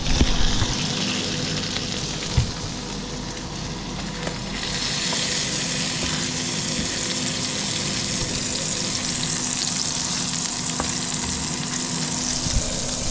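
Beef burger patty topped with cheese sizzling in hot fat in a frying pan, the sizzle getting louder about four and a half seconds in. A couple of short knocks come in the first few seconds.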